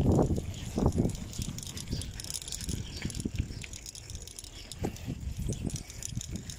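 Bicycle ridden over rough, cracked asphalt, rattling as it rolls, with irregular low bumps, the loudest in the first second.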